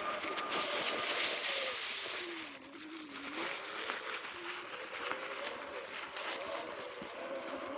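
Sur-Ron X electric dirt bike's motor and drivetrain whine, its pitch dropping as the bike slows about two and a half seconds in, then rising again as it speeds up. A steady rush of wind and tyre noise runs under it.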